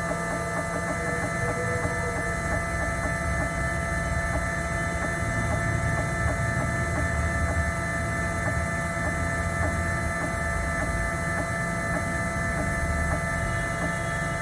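Small desktop CNC machine running steadily as its cutting bit is lowered toward the chip's surface: an even motor whine made of many steady tones over a low hum.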